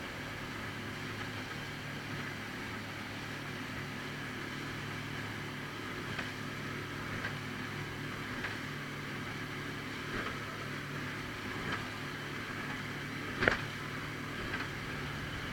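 Motorboat engine running steadily with a low drone, with a few short sharp knocks, the loudest near the end.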